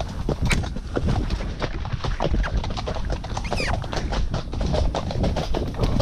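Shire horse snorting and blowing contentedly after a canter, over the steady rustle and thud of walking through undergrowth. A short falling whistle about halfway through.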